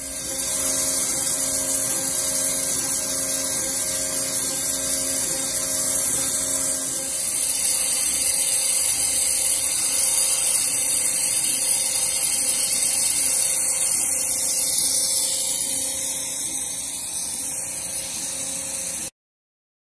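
Flow CNC abrasive waterjet cutting a thick aluminium plate: a loud, steady high-pitched hiss from the jet, with a low steady hum beneath. It cuts off suddenly near the end.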